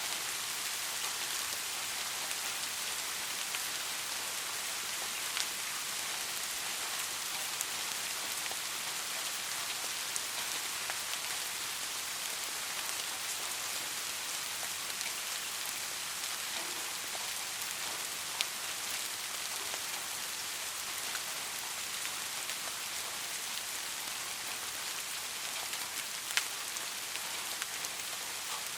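Steady rainfall: an even hiss of rain with scattered individual drops tapping, a few sharper taps standing out now and then.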